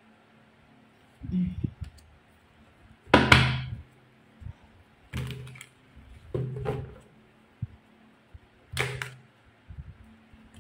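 A deck of tarot cards being shuffled by hand: five short bursts of card noise a second or two apart, the loudest about three seconds in.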